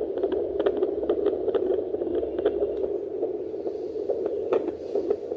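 Fetal heartbeat played through a handheld fetal Doppler's loudspeaker, its probe on the mother's belly: fast, regular beats, a few a second, over a steady hiss.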